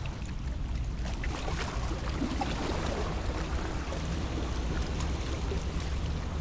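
Steady low drone of a boat engine, with wind and sea noise over it and a few faint ticks in the first couple of seconds.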